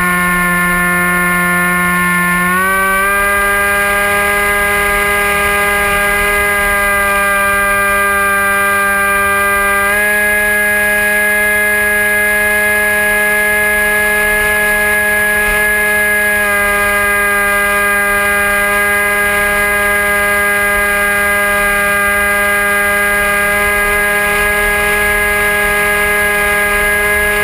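Dynam Hawk Sky RC plane's brushless electric motor and propeller whining at a steady pitch, heard through the onboard camera. The pitch steps up about two and a half seconds in as the motor speeds up, then shifts slightly twice more.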